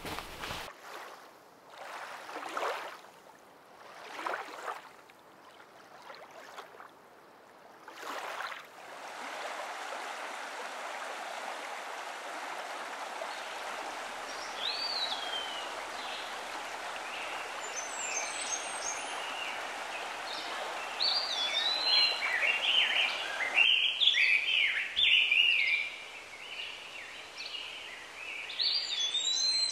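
Steady rush of running water with birds singing over it, the birdsong growing busier from about two-thirds of the way through. In the first few seconds, before the water sound comes in, only a few soft rustles.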